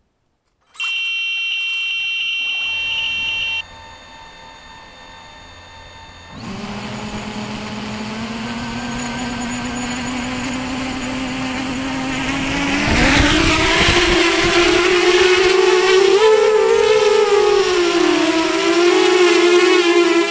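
A steady electronic beep tone sounds for about three seconds. A few seconds later the brushless motors and propellers of a tiltrotor VTOL flying wing spin up at idle and hum steadily. About halfway through they throttle up with a rising whine as the model lifts off into a hover, and the pitch then wavers with the hover corrections.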